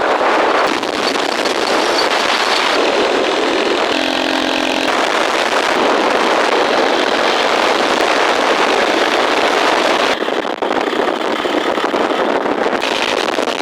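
Steady, loud rushing noise of riding on a motorcycle: engine and wind mixed together, with a brief tonal sound about four seconds in.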